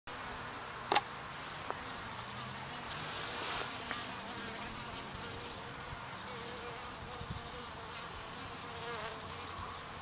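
Honey bees buzzing at the entrance holes of a wooden Japanese hive, a faint hum that wavers in pitch as bees fly close. A single sharp click about a second in.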